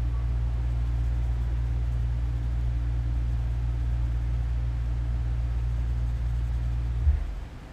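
Low, steady machine hum that stops with a click a little after seven seconds in.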